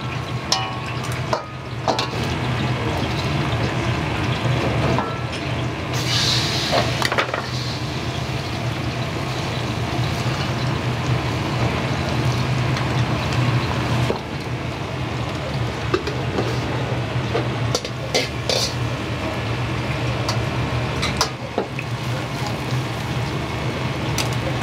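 Food frying in a wok over a gas burner, with a steady low roar and occasional short metal clanks of utensils on the pan.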